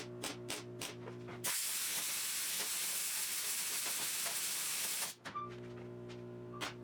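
Background music with a plucked guitar, broken for about three and a half seconds by a steady, loud hiss that cuts in and out sharply.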